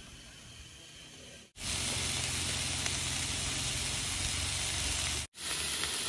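Faint background for about a second and a half, then, after an abrupt cut, pieces of meat sizzling in a hot pan: a loud, steady hiss, briefly broken by another cut near the end.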